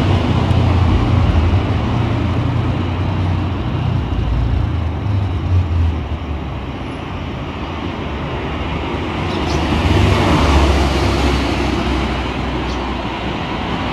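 Road traffic: cars passing close by with engine and tyre noise. A deep rumble swells for the first few seconds and again about ten seconds in.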